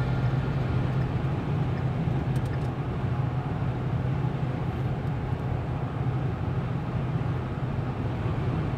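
Inside a car cruising on a highway: a steady road and engine drone with a low hum.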